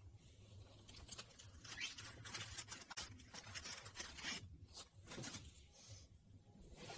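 Faint rustling and crinkling of a paper fast-food fry bag as a hand takes fries out of it, a run of short rustles.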